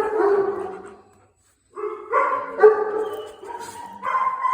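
A dog whining and crying in drawn-out, pitched cries: one trailing off about a second in, then after a short pause a longer one and another near the end.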